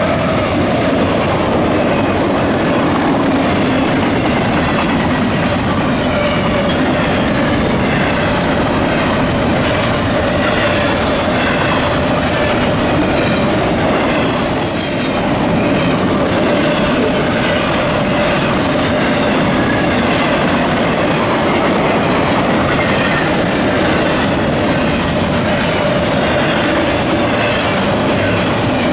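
CSX double-stack intermodal freight train rolling past, its wheels clattering over the rail joints, with a steady squeal running under the rumble. A brief high-pitched wheel squeal comes about halfway through, and the tail of the locomotive horn dies away at the very start.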